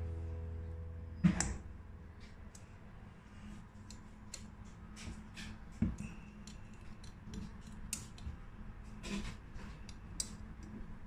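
Allen key working the screws of a minibike engine's intake manifold, with small metallic clicks and scrapes throughout and a few louder knocks, the first about a second in.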